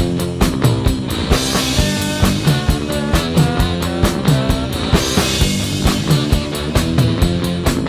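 Background rock music with a driving drum beat and guitars.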